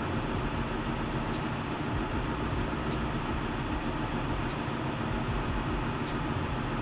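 Ford Transit Mk8's diesel engine idling steadily with the van standing still, running so the alternator charges the leisure batteries. A light, fast, regular ticking runs over the engine sound.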